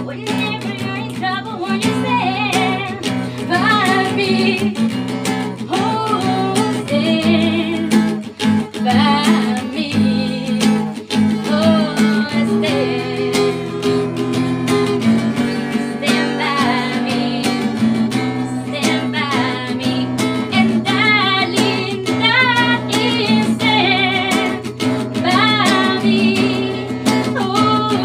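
A woman singing with a wavering vibrato over steadily strummed acoustic guitar chords.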